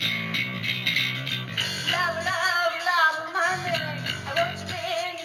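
Band music: bass and guitar playing, with a voice singing from about two seconds in.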